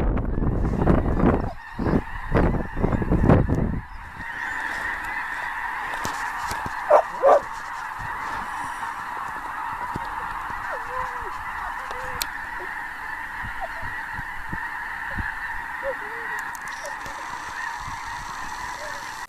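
A huge flock of snow geese calling all at once, a dense unbroken din of high honks, with a couple of nearer calls standing out about seven seconds in. Wind buffets the microphone for the first few seconds.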